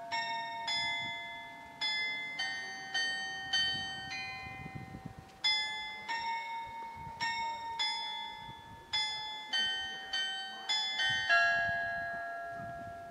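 Bells of several pitches struck in an irregular pattern, roughly one or two strikes a second, each ringing on and fading. The last strike rings out slowly near the end.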